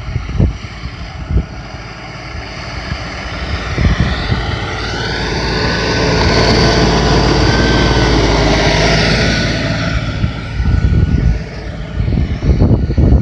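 LS XR4155H tractor's diesel engine running, swelling from about four seconds in to a loud stretch in the middle and easing off again near ten seconds, with a whine that bends up and down in pitch.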